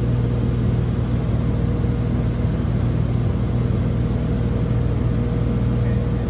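Cabin drone of a Beechcraft Baron 58P's twin piston engines and propellers in steady flight, heard from the cockpit: a loud, even hum with a low steady pitch that does not change.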